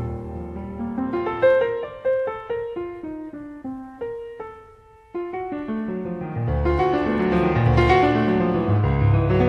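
Piano music: a slow line of single notes that thins out and almost stops about five seconds in, then fuller, louder playing with deep bass notes.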